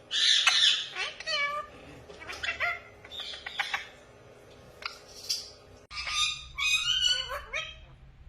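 Pet parrot calls: a harsh squawk at the start, then a run of short, sharp chirps and whistles that sweep quickly up and down in pitch.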